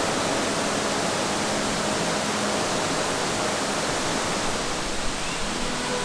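Steady rush of falling water, even and unbroken. Background music fades out early on and comes back near the end.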